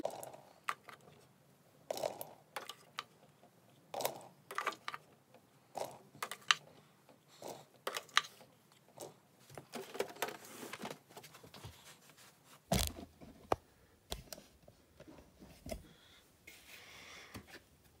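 Irregular plastic clicks, knocks and rattles as a Casdon toy washing machine is handled and its door shut, with one heavier thump about two-thirds of the way through.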